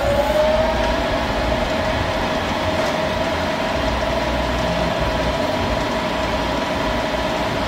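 Warner & Swasey turret lathe running, its drive giving a steady whine that rises slightly in pitch at the start and then holds, over a constant mechanical rumble.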